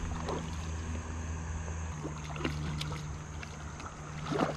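A steady low hum, like a small motor running, that shifts slightly in pitch about two seconds in, with a few faint clicks and a short louder sound near the end.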